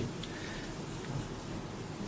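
Quiet work on a vacuum pump's valve-plate screw, heard as a faint tick or two over a steady low hiss.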